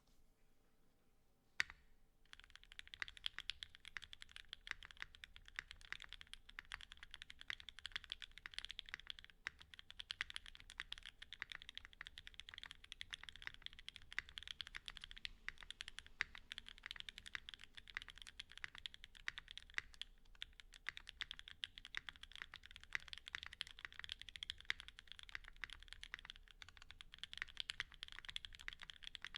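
Custom mechanical keyboard (Geonworks F1-8X with an aluminium leaf-spring plate, lubed and filmed Banana Split switches and GMK keycaps) typed on. A single key click about a second and a half in, then continuous, fast typing from about two seconds in.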